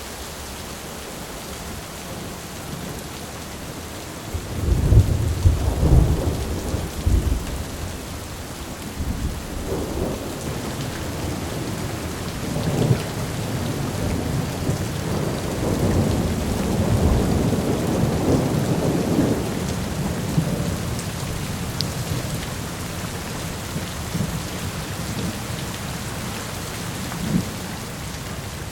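Thunderstorm: steady rain falling, with thunder breaking loudly about five seconds in and then rolling on in a long, deep rumble through the middle before dying away.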